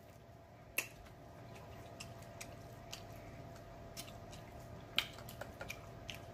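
Quiet eating sounds from a seafood boil mukbang: scattered sharp clicks and smacks of chewing and handling food, the loudest about a second in and about five seconds in, over a faint steady hum.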